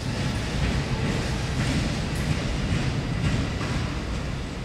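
R44 subway train rolling through the station throat and yard trackwork, its wheels clacking over rail joints and switches, with a steady rumble beneath a few sharp clacks.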